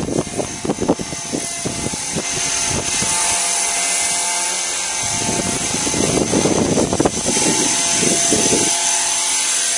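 Blade 300X electric RC helicopter's motor and rotor whining steadily at a constant pitch, with gusts of wind buffeting the microphone at the start and again from about halfway to near the end.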